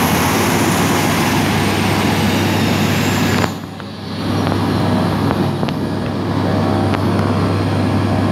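Turboprop engines of a Buddha Air Beechcraft 1900D running loud and steady, with a high turbine whine that falls slowly in pitch. About three and a half seconds in the sound drops suddenly and briefly, then the engine noise goes on, duller than before.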